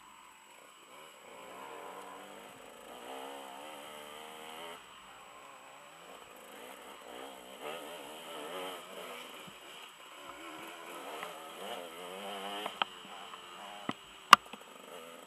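Dirt bike engine heard through a helmet camera, its pitch wavering up and down as the rider works the throttle along a wooded trail. A few sharp knocks come near the end, the loudest about fourteen seconds in.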